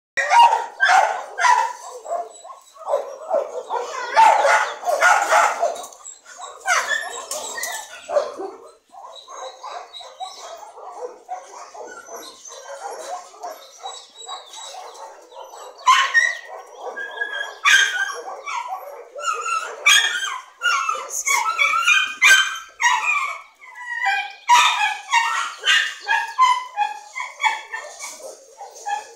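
Dogs barking in repeated short bursts, heavy near the start and again in the second half, with a quieter stretch in the middle.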